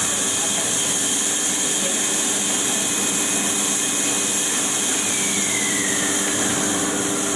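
Extrusion blow molding machinery running in a factory hall: a steady mechanical hum with several constant tones under a strong hiss, and a whine that falls in pitch from about five seconds in.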